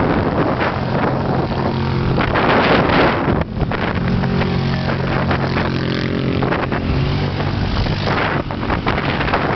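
Quad bike (ATV) engines running as the machines ride past one after another, with the engine note strongest twice. Wind buffets the microphone throughout.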